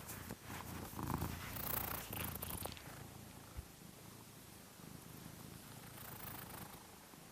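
Domestic cat purring, louder and uneven over the first few seconds, then softer, swelling slightly again near the end.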